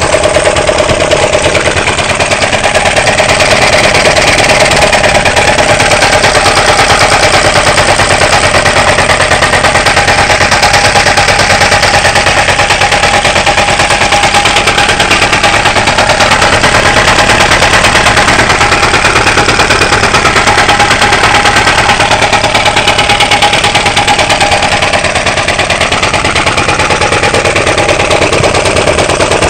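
Yanmar Diesel K2 single-cylinder, water-cooled four-stroke horizontal diesel stationary engine running steadily on its own, with a rapid, even firing beat.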